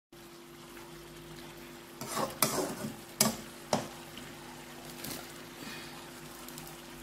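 Metal spatula scraping and knocking against a metal wok while turning fish in sauce: a cluster of knocks about two seconds in, then two sharp clanks about half a second apart, and a fainter one later, over a steady low hum.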